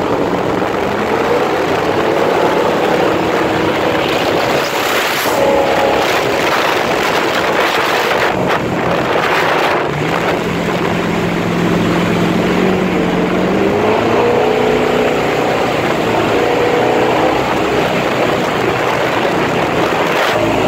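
Wooden mahogany motorboat's engine running under way over the rush of water. The engine note drops about ten seconds in, then climbs again a few seconds later.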